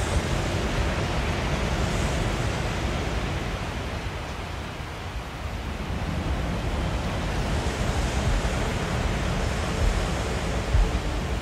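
Ambient electronic music in a passage made almost entirely of a soft wash of noise like surf, dipping a little about halfway through and swelling again, with a couple of brief low bumps near the end.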